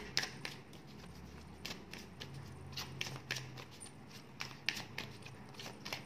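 Tarot cards being handled and drawn from the deck: light, irregular clicks and taps, several a second, over a faint low hum.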